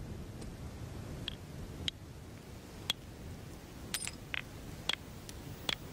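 Flint knapping: a hammerstone striking a flint core in about ten sharp, irregularly spaced clicks, each with a short stony ring.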